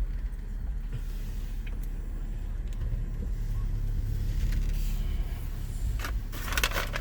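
Low steady rumble of a car moving slowly, heard from inside the cabin, with a few short clicks near the end.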